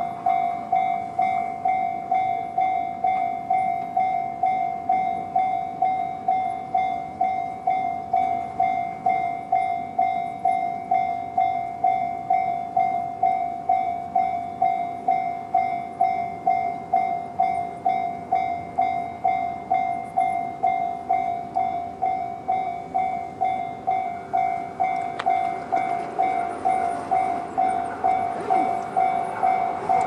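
Japanese level-crossing alarm, the JR standard electronic bell, ringing in an even repeating ding about twice a second while the barriers are down. Other noise grows beneath it in the last few seconds.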